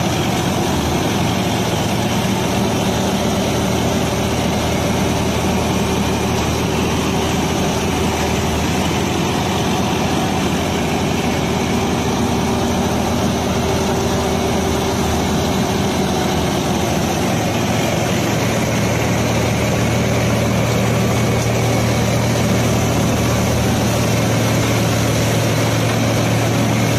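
Tractor-driven Vishwakarma-741 straw reaper running steadily as it works through stubble: the tractor's engine under load together with the reaper's belts, pulleys and rotors. The low hum grows a little stronger about two-thirds of the way through.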